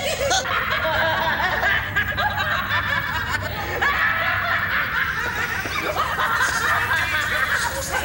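Several people laughing together in snickers and giggles, without words.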